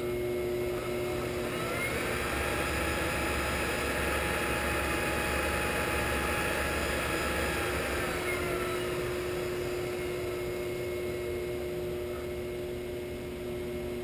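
Shopsmith 10ER headstock driven through its belt and pulleys by a Leeson 3/4 HP DC motor under a speed controller. It is spun up over about a second, runs steadily with a whine, then slows down about 8 seconds in, while a steady hum continues underneath. The pulleys have been trued and statically balanced.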